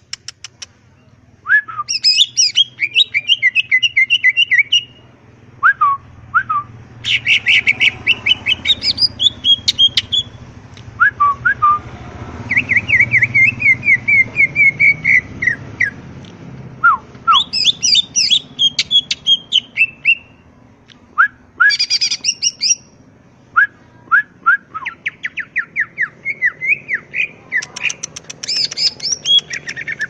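Male cucak ijo (green leafbird) singing in bursts: fast runs of repeated chirps and whistled notes, many sliding down in pitch, broken by short pauses between phrases.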